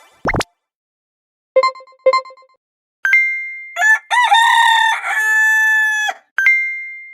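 Cartoon sound effects: a quick swish, two short dings, then a long crowing call like a rooster's whose pitch bends at first and then holds on one note for about two seconds.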